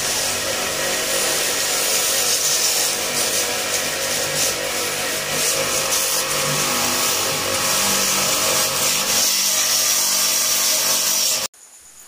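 Starq W3A electric pressure washer running steadily, its motor humming under the hiss of the water jet spraying the motorcycle; it stops abruptly near the end.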